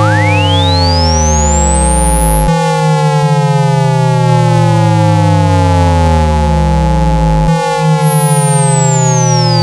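Synthetic water-eject tones for clearing a phone speaker: a loud pure tone sweeps up to a very high pitch over about two and a half seconds, then sweeps back down near the end. Underneath are steady hums and a buzzy low tone that slides downward and restarts about every five seconds.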